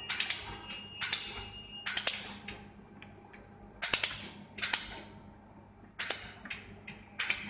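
Handheld fiber laser welder tack-welding stainless steel sheet: seven sharp cracks, roughly a second apart, each with a short fading tail as the laser pulse strikes the metal.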